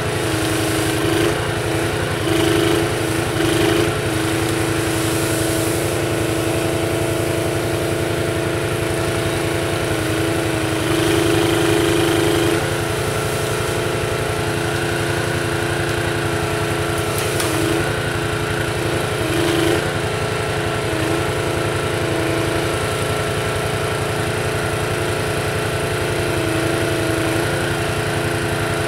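Small engine running steadily as it drives a Jussi 400 ATV-mounted hydraulic crane; the sound swells louder for a second or two several times as the crane works, longest near the middle.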